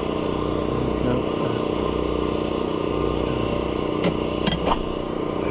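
Air compressor running with a steady hum, with three or four sharp clanks about four seconds in.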